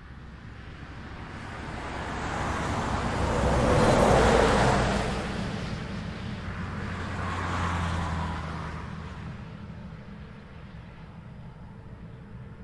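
Vehicles passing on a highway: the tyre and engine noise swells to its loudest about four seconds in and fades, then a second vehicle passes about eight seconds in with a steady low engine hum, before it settles back to the distant hum of traffic.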